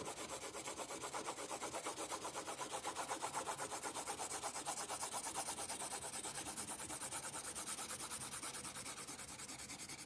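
Graphite pencil scratching back and forth on drawing paper in a rapid, even rhythm of short strokes: hatched shading being laid down.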